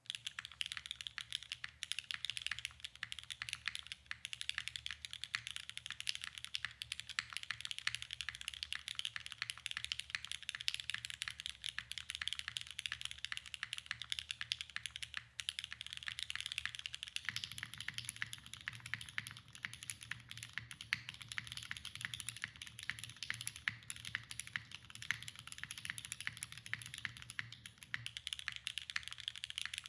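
Continuous fast typing on a Neo65 Cu gasket-mount mechanical keyboard with lubed Cherry MX2A Black linear switches, a carbon-fibre plate and GMK keycaps: a dense stream of key clacks. About two-thirds of the way through, the recording switches to an iPhone microphone and the typing sounds fuller in the low end for about ten seconds, then returns to the brighter dynamic-mic sound near the end.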